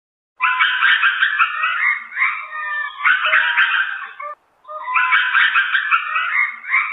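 A dense chorus of many overlapping high-pitched chirping and trilling animal calls. It starts about half a second in, drops out briefly after about four seconds, then resumes.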